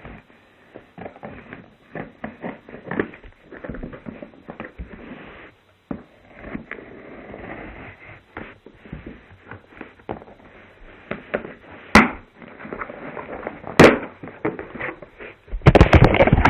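Cardboard shipping box being opened by hand: scattered crackling, scraping and tapping of cardboard and packing, with two sharp knocks about twelve and fourteen seconds in. Loud rubbing and handling noise on the microphone near the end as the camera is picked up.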